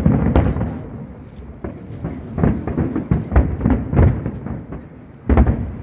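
Fireworks show: aerial shells bursting in rapid succession, a string of deep booms. A burst opens the sound, a dense cluster of bangs falls in the middle, and a single loud boom comes about a second before the end.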